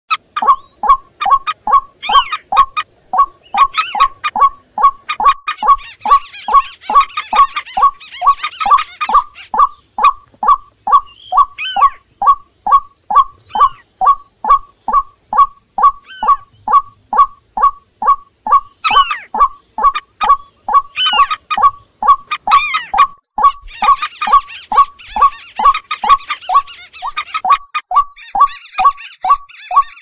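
Bird-lure recording of marsh rails calling together, white-breasted waterhen among them: one call repeats evenly about two and a half times a second throughout. Twice, longer bursts of higher chattering calls run over it, and now and then a short rising squeal.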